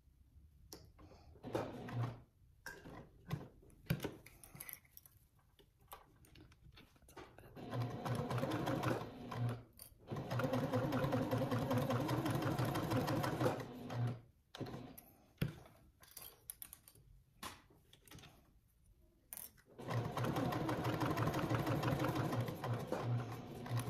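Janome HD9 sewing machine stitching a seam in stop-start runs: a few short spurts at first, then longer steady runs of stitching, pausing around the middle and running again near the end.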